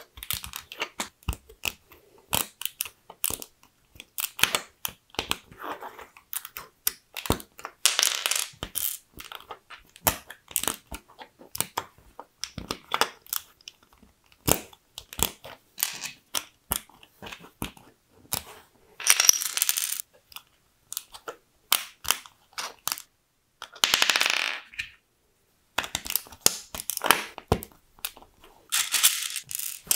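LEGO plastic bricks being handled and snapped together by hand: a steady run of sharp clicks and snaps, with three longer, noisier stretches in the second half.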